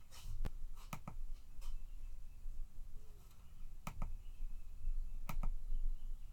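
A handful of sharp clicks, about seven, three of them in quick pairs, over a faint steady low hum.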